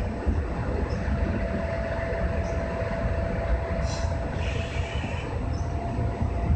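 JR West 201 series electric train heard from the driver's cab as it moves off along a station platform: a steady low rumble of the wheels on the rails with a thin, steady whine from its thyristor chopper traction control, and a brief higher-pitched hiss about four seconds in.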